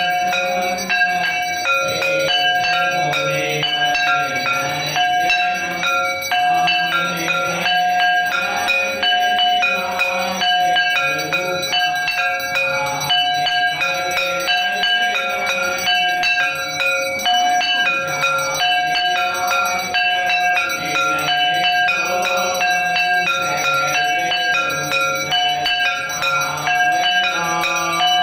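Temple bells rung continuously for an aarti, struck over and over without pause.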